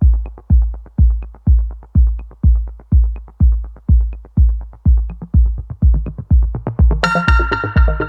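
Electronic background music with a steady kick drum at about two beats a second; synth chords come in about seven seconds in.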